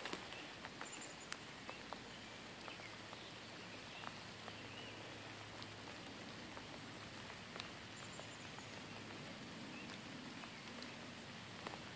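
Faint outdoor ambience: a steady low hum and soft hiss, with a few small clicks in the first couple of seconds and faint short high chirps about a second in and again about eight seconds in.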